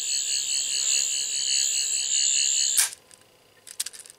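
Eleventh Doctor sonic screwdriver toy playing its electronic sound effect, set off by gripping its touch sensors: a high, warbling electronic whirr that cuts off suddenly about three seconds in, followed by a few light clicks.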